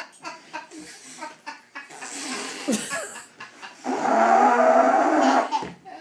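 A man blowing his nose hard into a tissue: one loud honk lasting about a second and a half, starting about four seconds in, after softer breathy sounds.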